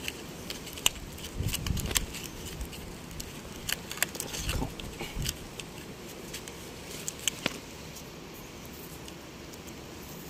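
Close handling noise: scattered small clicks and crackles as a thin wire is twisted by hand around an antenna rod wrapped in aluminium tape, with a few low rumbles in the first five seconds.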